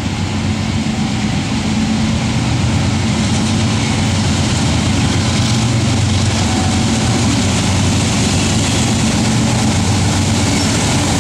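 Diesel locomotives of an approaching freight train, led by a GE Dash 9-44CW, running under power with a deep, steady engine drone. It grows louder over the first couple of seconds, then holds steady as the lead units near.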